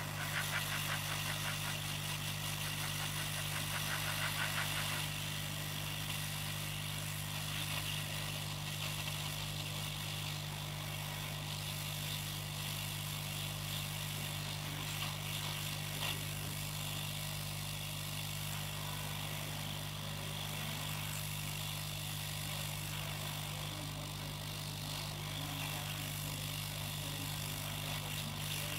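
Steady low electrical hum with an even hiss over it, unchanging throughout, with faint fine ticking in the first few seconds.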